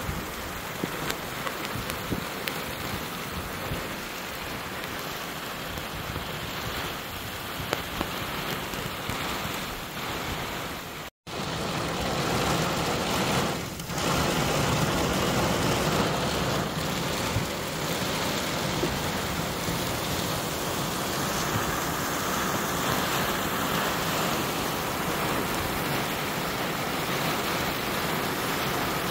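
Heavy thunderstorm rain pouring down steadily, with scattered sharp drop hits in the first half. The sound cuts out for a moment about eleven seconds in, then comes back louder.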